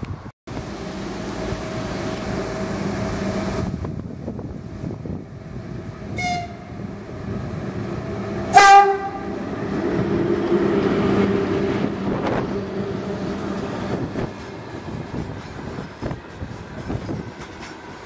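VL10U electric locomotive hauling a freight train past at close range, with a steady hum and rail rumble. It gives a faint short horn note about six seconds in and a loud, brief horn blast about two seconds later. Then the locomotive goes by, followed by the gondola wagons clattering over the rail joints.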